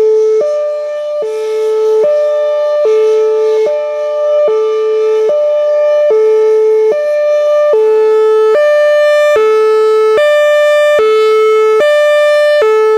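Whelen Vortex R4 outdoor warning siren sounding its Hi-Lo tone: two pitches alternating steadily, each held for just under a second.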